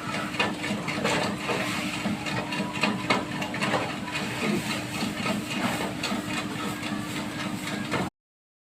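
A 1-ton vertical mixer running: a steady machine hum with a constant tone and irregular rattling and hiss as it churns a powder mix. The sound stops abruptly near the end.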